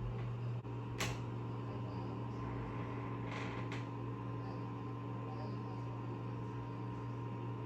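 Steady low electrical or fan-like hum in a small room, with a sharp click about a second in and a brief soft rustle around three and a half seconds.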